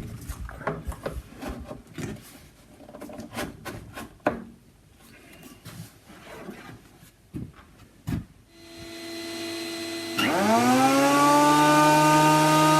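Clicks and knocks of hose and machine handling. Then, about three-quarters of the way in, a dust extractor and a Titan planer thicknesser start up: first a steady hum with rising air noise, then a motor spinning up and settling into a loud steady whine.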